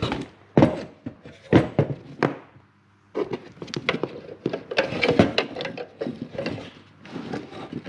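Wiring loom being handled on a wooden workbench: plastic plug connectors knocking and clacking and wires rustling against the bench top, in irregular bursts with a brief pause about three seconds in.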